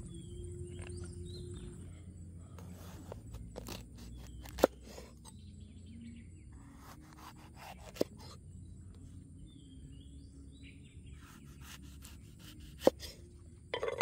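A knife chopping through a red bell pepper onto a cutting board: single sharp knocks a few seconds apart, three in all, then a quick cluster of knocks near the end. Birds chirp faintly in the background.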